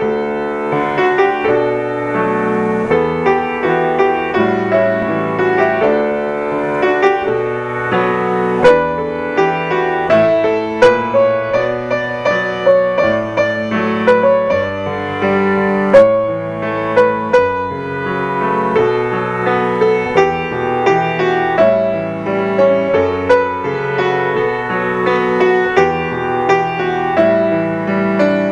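Solo grand piano playing a worship-song arrangement: a melody over bass notes and chords, with no voice.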